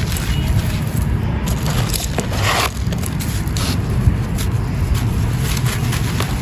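Hardened lumps of dry wall-texture powder crumbled by hand: a run of gritty crackling crunches, one louder crunch about two and a half seconds in. A steady low rumble of wind on the microphone lies underneath.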